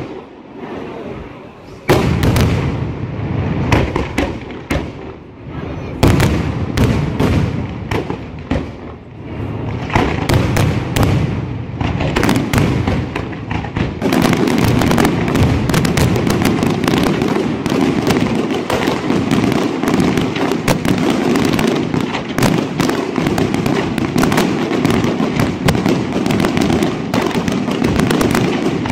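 Aerial fireworks display: shells bursting with sharp bangs and crackle, at first as separate reports, then from about halfway through as a dense, unbroken barrage of bursts and crackling.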